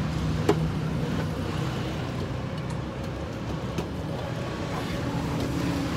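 Steady low rumble of background street noise, with a few sharp clinks of a steel ladle against metal pots, the loudest about half a second in.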